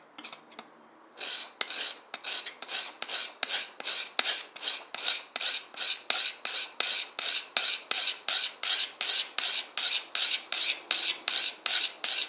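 Steel knife blade rubbed rapidly back and forth on a sharpening stone. A few light scrapes come first, then from about a second in steady rasping strokes at about four a second.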